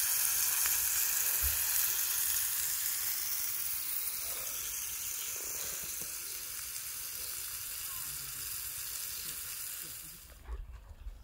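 A minced-meat burger patty sizzling in a frying pan on a portable gas camping stove: a steady hiss that slowly grows quieter and stops suddenly about ten seconds in.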